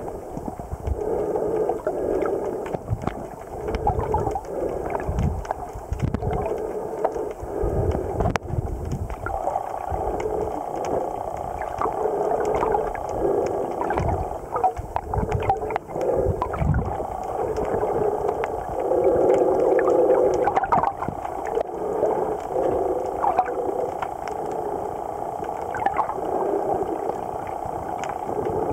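Muffled underwater noise picked up by a camera held under the sea: shifting, gurgling swells of water sound with irregular low rumbles and faint clicks.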